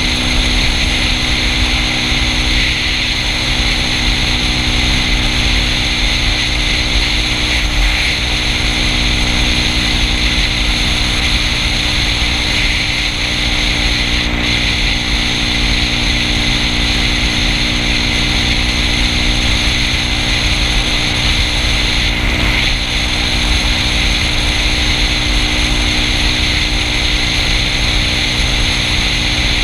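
Yamaha Cygnus scooter's single-cylinder engine running at a steady cruising speed, its pitch holding level, under a constant rush of wind over the helmet-mounted microphone.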